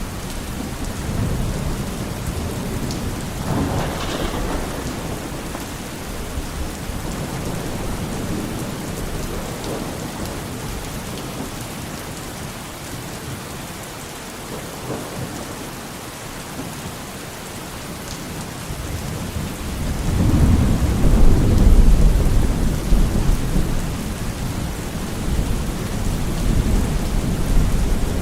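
Steady heavy rain with thunder rumbling. There is a brief sharper crack about four seconds in. A louder, deep rumble swells about two-thirds of the way through and is the loudest part.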